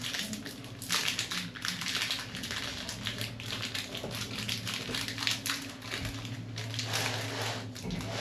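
Irregular rustling and crinkling with light taps, over a steady low hum.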